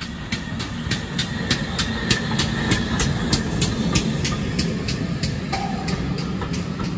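GWR 57xx pannier tank steam locomotive working past with its train: a steady beat of exhaust chuffs, about three a second, over the rumble of the coaches' wheels on the rails, which grows louder about a second in as the train draws close.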